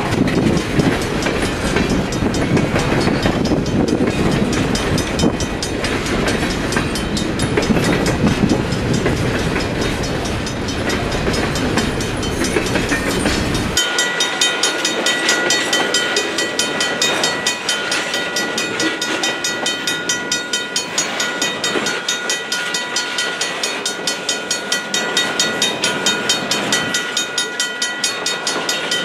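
Freight train rolling past close by: a loud rumble and clatter of boxcar wheels on the rails. About 14 seconds in, the sound changes abruptly to a thinner, more distant train sound with several steady high-pitched tones and a quick, even ticking.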